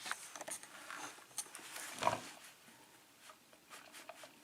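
Faint clicks and scrapes of small lock pins being handled and laid out on a work surface, with one louder knock about two seconds in.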